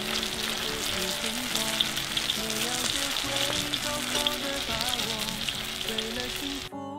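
Hot oil sizzling and crackling steadily in a cast-iron wok as egg-battered, rice-bran-coated pieces deep-fry, under soft instrumental background music; the sound cuts off abruptly just before the end.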